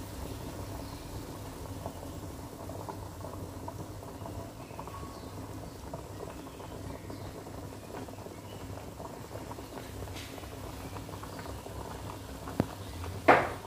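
Pot of pork boiling hard, a steady bubbling rumble with small pops. Near the end come two sharp knocks, the second louder.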